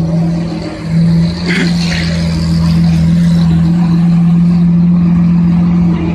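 A car engine idling steadily, an even low hum that holds without revving; two short higher-pitched sounds come through it about a second and a half in.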